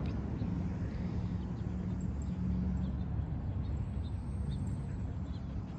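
Steady low rumble of outdoor background noise with a faint hum and a few faint ticks.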